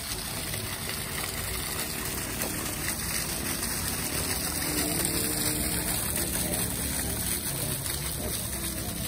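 Park fountain's water jets splashing down into its stone basin: a steady rush of falling water.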